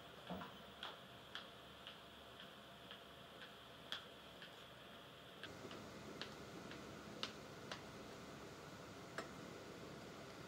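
Faint footsteps clicking on a hard floor, about two steps a second. About halfway through, the background hiss changes and a few scattered clicks follow.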